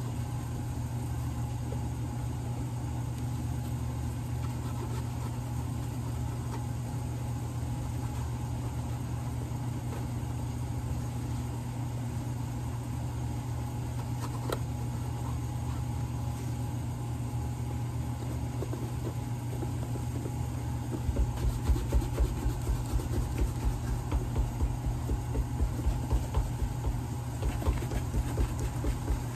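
Steady motor hum of shop machinery running. From about two-thirds of the way in, a horsehair shoe brush is stroked rapidly back and forth over the shoe's leather upper, giving a quick run of rhythmic brushing thuds over the hum.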